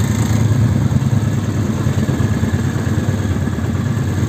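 Lifan 6.5 hp single-cylinder four-stroke engine of a homemade three-wheeled tractor, running at a steady speed as the machine drives along a dirt track.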